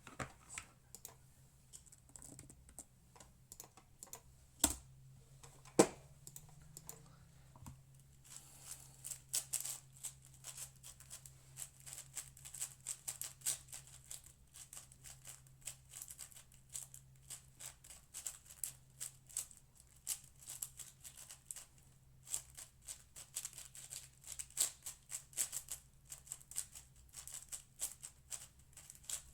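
6x6 speedcube (Cosmic Shadow M) being turned fast during a solve: a dense stream of rapid plastic clicks and clacks, sparse at first with two sharp knocks about five and six seconds in, then near-continuous from about eight seconds on. A faint steady low hum runs underneath.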